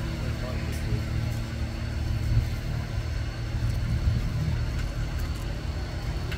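Steady low rumble with a faint steady hum over it.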